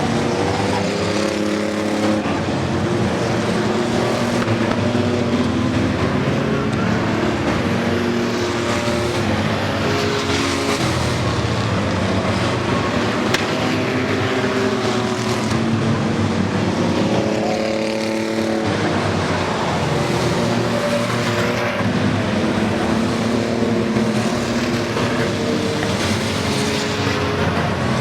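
A pack of race trucks lapping an oval track, several engines running at high revs at once. Their pitches rise and fall as trucks pass and slow for the turns.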